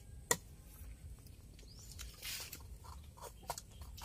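Faint rustling and scattered small clicks, with one sharp click about a third of a second in and a brief rustle a little after two seconds.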